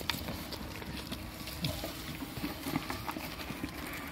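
Goats eating a dry feed mix from a plastic feed pan: a steady patter of small, irregular crunches and clicks from chewing and from muzzles knocking the feed about in the pan.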